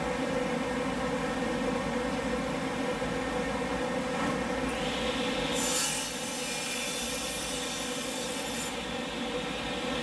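Table saw and 4-inch single-stage dust collector running with a steady hum; about five seconds in, the blade cuts through a wooden board, adding a high rushing cutting sound that lasts about four seconds and is loudest near its start.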